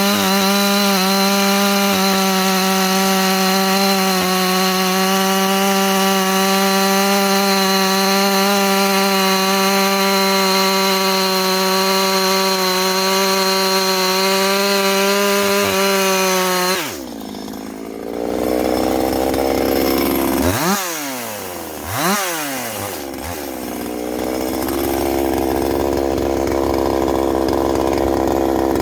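Ported Husqvarna 350 chainsaw's 49.4 cc two-stroke engine held at high revs with a steady note, then dropping suddenly to idle about seventeen seconds in. It is blipped up and back down twice in quick succession, then settles into a steady idle.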